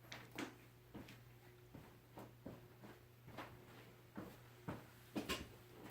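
Faint irregular clicks and light knocks, about ten in all and unevenly spaced, the loudest near the end, over a low steady hum.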